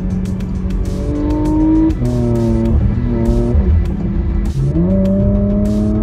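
In-cabin sound of a 2017 Porsche Macan GTS under way, its turbocharged V6 running and changing pitch several times, with music playing along with it.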